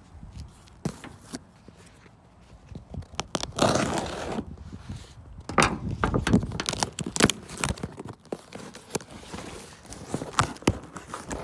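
A cardboard shipping box being opened and its contents handled by hand: crackling, scraping and rustling of cardboard and packaging with many sharp taps and knocks. Quiet for the first three seconds, then busy from about three and a half seconds in.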